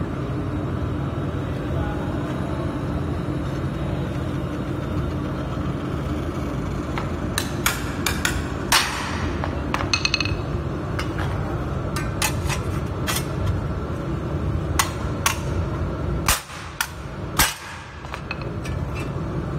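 Hammer blows on a laser-welded 2 mm stainless steel plate, bending it at the weld to test the joint's strength. A run of irregular, sharp metal strikes, some ringing, starts about seven seconds in and goes on for about twelve seconds, over a steady low hum.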